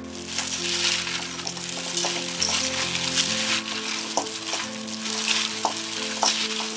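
Plastic-gloved hands tossing and squeezing kohlrabi chunks with red onion, chili flakes and garlic in a stainless steel bowl, mixing kkakdugi. It makes a continuous rustle full of small clicks that starts suddenly, with soft background music beneath.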